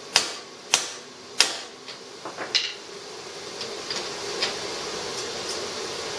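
Hammer blows on a bearing driver, driving a new wheel bearing into a rear axle tube: three hard metallic strikes with a short ring, about two-thirds of a second apart, then two lighter taps. After that only a few faint clicks over a steady hum.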